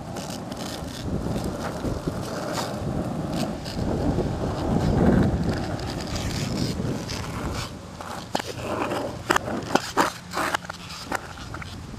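Skateboard wheels rolling over a paved road with wind on the microphone: a rough, steady rumble that swells about five seconds in. Near the end comes a run of sharp clicks and knocks.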